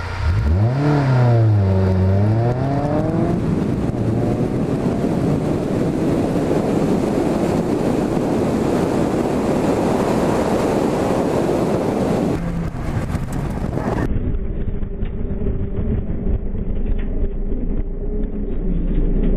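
Lotus Elise engine accelerating hard, its note rising, dipping and rising again, then buried under heavy wind noise on the microphone at speed. About two-thirds through, the sound cuts to a duller, steady engine drone heard from inside the open-topped cabin.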